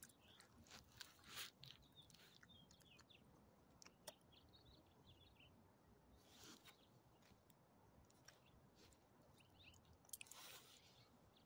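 Faint, short bouts of a dog crunching small treats, with scattered clicks, and a few faint bird chirps in the background.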